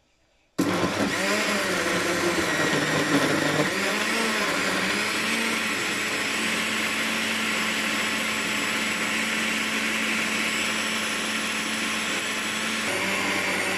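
Electric countertop blender switched on about half a second in, then its motor running steadily as it blends a full jug of papaya with milk.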